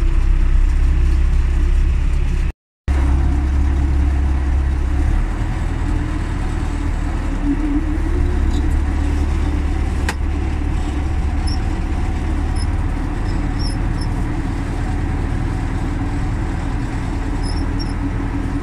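Belarus 920.3 tractor's diesel engine running steadily under way, a low, even drone. The sound drops out for a moment about two and a half seconds in.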